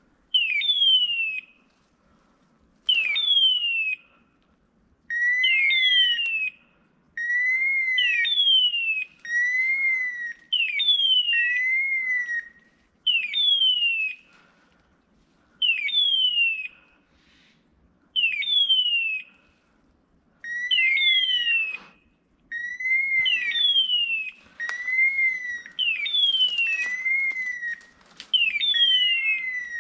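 An electronic beeper collar on a Breton spaniel gundog sounds a two-part synthetic call, a falling squeal and then a short rise-and-fall tone. The call repeats about once a second with a few brief pauses, the fast rate a beeper gives while the dog stands on point. There is a faint rustle of brush underneath.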